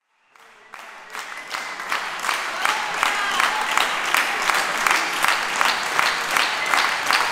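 Audience applauding, fading in over the first second. Clear claps land in an even beat of about three a second through the applause.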